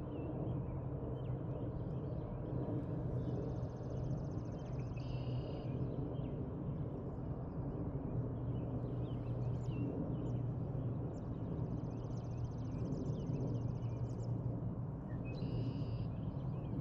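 Songbirds singing: two long, fast, buzzy trills, each about two seconds, and a few short two-pitched calls, over a steady low hum.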